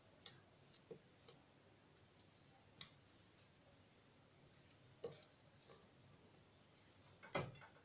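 Faint, scattered clicks and light knocks of a knife cutting papaya and pieces dropping into a glass blender jar, with a louder cluster of knocks near the end.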